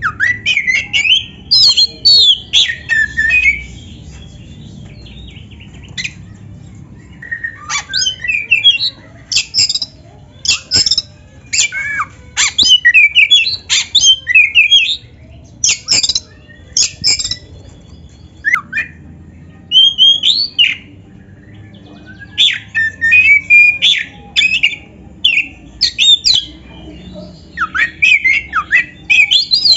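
Oriental magpie-robin (black-breasted kacer) singing in loud bursts of rapid, varied whistled phrases, a full song laced with mimicked notes, with pauses of a few seconds between bursts.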